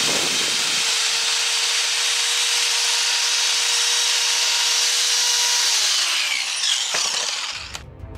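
Electric grinder grinding the steel of an ax head, a steady whine over a high hiss. About six seconds in it is switched off and the whine falls as the motor spins down.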